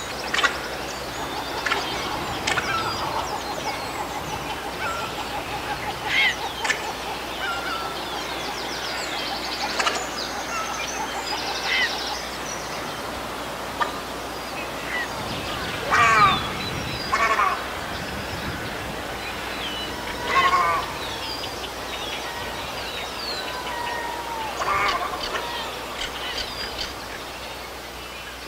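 Herons calling: repeated harsh, honking squawks among many other bird calls and chirps, with the loudest squawks about halfway through and again a few seconds later.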